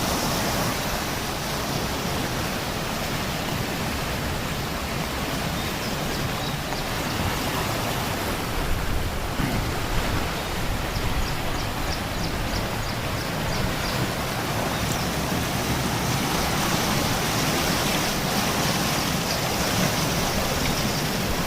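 Heavy rain falling steadily, a continuous even hiss of a downpour.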